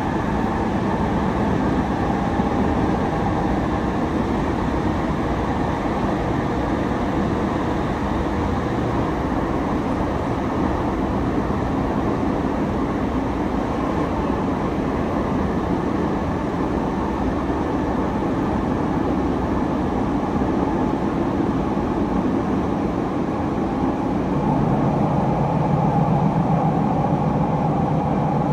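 Running noise heard inside a Sotetsu 10000 series electric train car with a Mitsubishi IGBT-VVVF inverter: a steady rumble of the car moving along the rails. Near the end a low hum grows louder.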